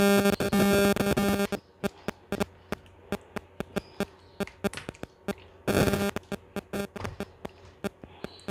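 Wet squelching and smacking of bare hands working a thick yogurt-and-spice marinade over a whole raw chicken in a steel plate, in many short irregular clicks. It opens with about a second and a half of music.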